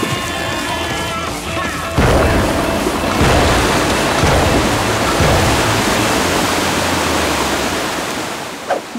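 Cartoon sound effect of water gushing: a loud rush of water bursts in suddenly about two seconds in as jets of water shoot up out of the manholes, easing off near the end. Music plays under it.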